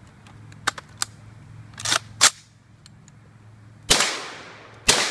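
Saiga-12 semi-automatic shotgun being reloaded and fired: light metal clicks and a sharp clack as the detachable feeder is swapped and the bolt is sent home, then two shots about a second apart, each trailing off in a long echo.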